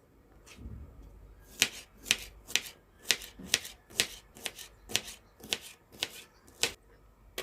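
Kitchen knife slicing bell pepper on a cutting board: a steady run of about a dozen crisp cuts, roughly two a second, starting about a second and a half in.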